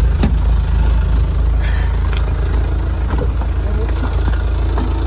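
Truck engine idling steadily, heard from inside the cab, with a few short knocks and clicks as people climb in and settle.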